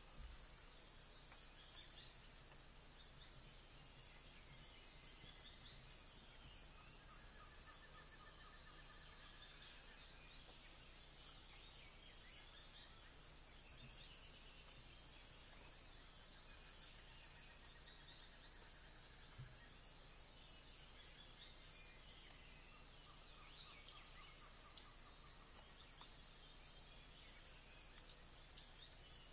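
Steady high-pitched insect chorus, with a few short pulsed trills from other animals several seconds apart.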